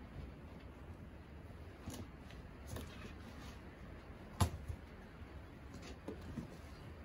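Kittens scuffling in a cardboard box: scattered scratching and rustling of claws on cardboard and paper, with a sharp knock about halfway through.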